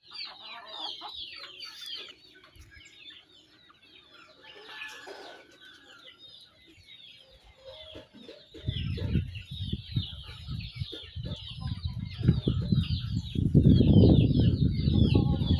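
Birds chirping in quick, repeated falling chirps. About halfway through, a low rumbling noise comes in and grows to become the loudest sound.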